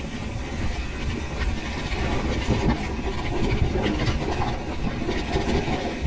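Pivot Switchblade mountain bike rolling fast down a rough dry dirt trail: tyres rumbling over the ground and the bike rattling over bumps, with a steady low rumble and irregular jolts.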